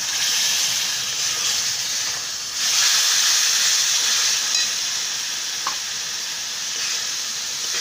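Tomato paste hitting hot oil and fried masala in a kadhai, sizzling at once as it lands. The sizzle steps up louder about two and a half seconds in and then keeps on steadily.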